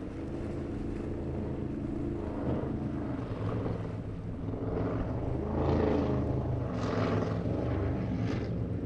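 Cigarette performance boat's engines running hard as it passes, a steady drone whose pitch shifts. Several rushing bursts of water and spray in the second half.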